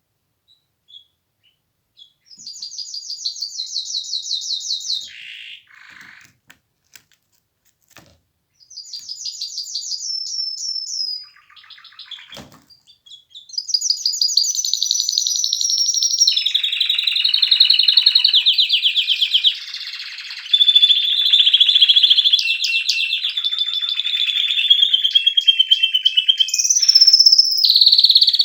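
Domestic canary singing: two short, rapid, high trill phrases with pauses between them, then from about halfway an unbroken run of fast rolling trills.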